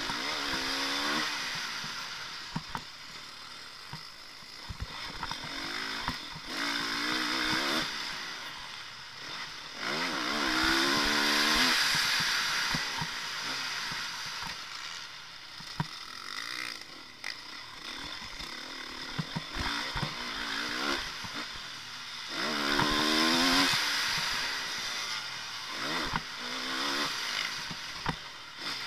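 Motocross bike engine heard from an onboard camera on a lap of a dirt track. The engine revs up in rising bursts several times and drops off between them, under a loud rush of wind, with short knocks from the bike over the dirt.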